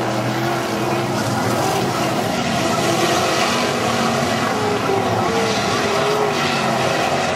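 Non-wing sprint car engines running on a dirt oval, a steady engine drone whose pitch wavers slightly.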